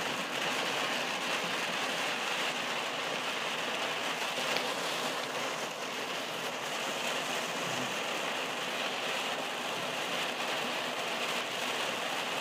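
Heavy rain pelting a moving car's roof and windshield, a steady hiss heard from inside the cabin, mixed with tyre noise on the flooded road.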